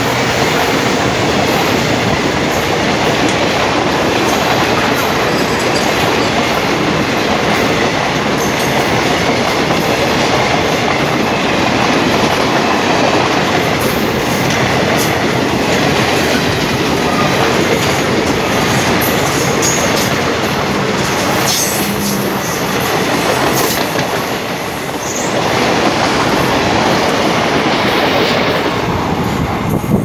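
Passenger coaches of a train passing close by at speed, their wheels clattering over the rail joints in a steady loud rush of wheel and track noise, with brief high squeals here and there.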